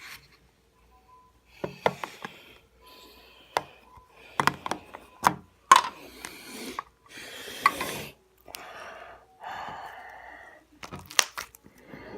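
Handling and opening of a parcel: sharp clicks and knocks with stretches of rustling, scraping noise.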